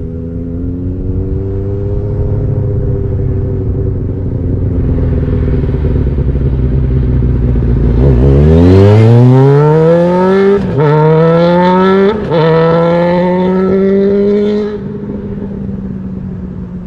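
2006 Kawasaki Ninja ZX-6R 636's inline-four engine running at low revs, then accelerating hard about halfway through, its note climbing steeply with two quick upshifts. The throttle rolls off near the end and the engine drops back to a steady lower note.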